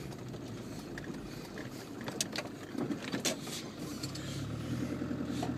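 Land Rover engine running at low speed, heard from inside the cab, with a few sharp knocks and rattles as it crosses the rutted green lane; the engine note gets louder about four seconds in.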